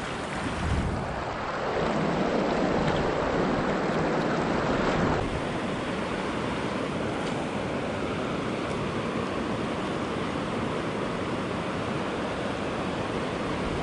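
Steady rush of moving river water, with wind on the microphone; it swells a little about two seconds in and eases back a few seconds later.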